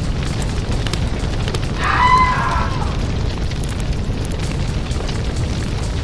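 A steady, deep rumble with scattered crackles, and a short pitched cry that bends slightly downward about two seconds in.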